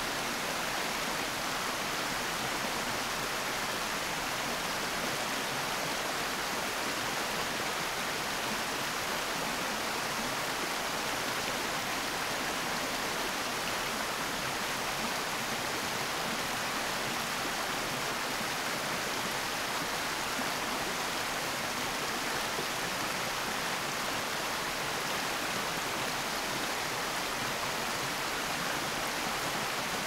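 Small creek running: a steady, even sound of flowing water.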